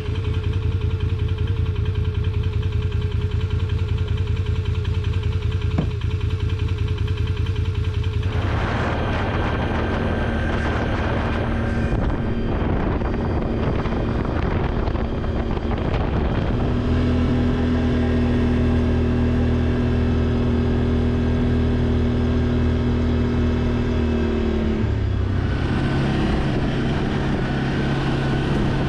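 Motor vehicle engine running steadily, its pitch stepping to a new level several times as the speed changes.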